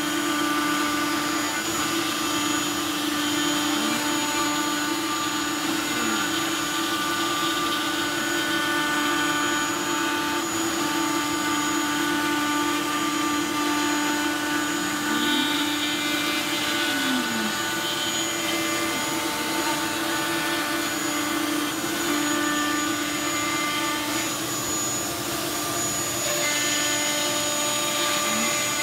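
CNC router's spindle, a router motor, running steadily at high speed as its bit cuts plywood, a continuous whine with several steady tones. A few times, short tones glide up and then down underneath, typical of the machine's stepper motors speeding up and slowing down as the gantry moves.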